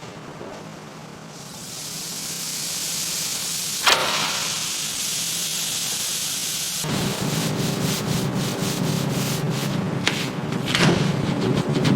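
Sanding: a steady abrasive hiss with a sharp click about four seconds in. From about seven seconds a motor hum joins it with quick rasping strokes.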